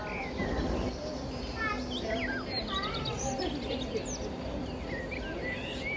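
Small birds chirping repeatedly in short, quick notes over a steady murmur of crowd chatter.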